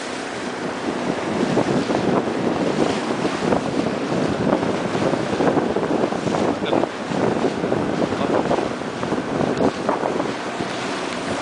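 Wind buffeting the microphone in irregular gusts, with waves splashing around a small aluminium boat on open water.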